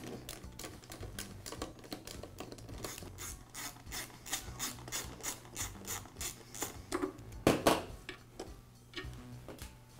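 Hand driver backing out the screws of a Ridgid drain auger motor's side cover: a run of quick, even ratchet-like clicks, about four a second, then a louder knock about three quarters of the way in.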